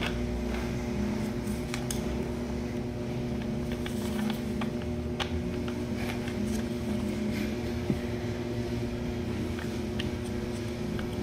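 A steady mechanical hum, with scattered light clicks and taps as small metal connector parts and the welding machine's plastic panel are handled; one sharper tick comes about eight seconds in.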